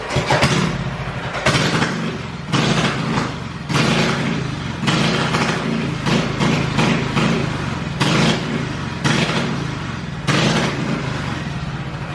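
Small gas engine on a barstool racer running and revved in short throttle blips about once a second, easing off near the end.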